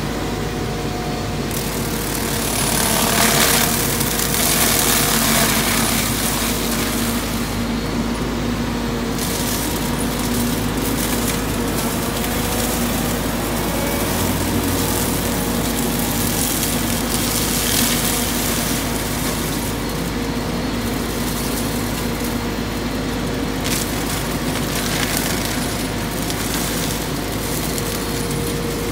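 Volvo 150 wheeled excavator running a hydraulic flail mulcher head: a steady engine-and-rotor hum, with rushing noise swelling several times as the spinning head chews into brush and saplings.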